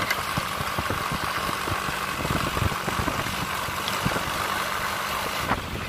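Single-cylinder engine of a Bajaj auto-rickshaw running at road speed close alongside, mixed with a motorcycle engine: a steady drone with a fast, uneven putter.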